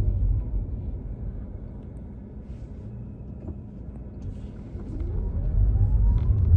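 Road and engine rumble inside a moving car. It dies down as the car slows, then builds again near the end with a faint rising whine as it picks up speed.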